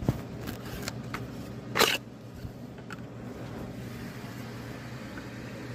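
Handling noise as the phone camera is picked up and moved: a few light clicks and one short, louder scuffing rustle about two seconds in, over a steady low background hum.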